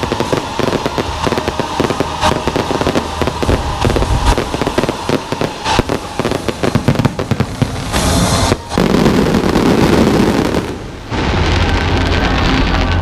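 Fireworks going off in a dense, continuous crackle of many rapid pops, with an especially heavy burst about eight seconds in.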